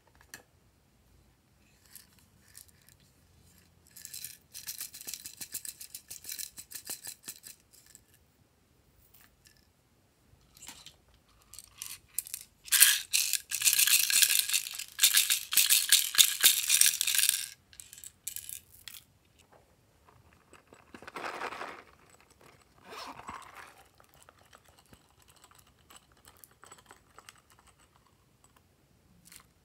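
Small hard beads rattling and pouring out of a plastic unicorn-shaped container into a glass tray of slime: a dense run of rapid clicks, with a first spell a few seconds in and the loudest, longest spell in the middle. Two short, softer rustles follow later.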